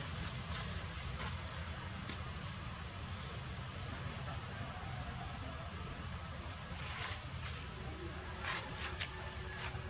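Steady, shrill drone of forest insects in two high pitches, over a low background rumble.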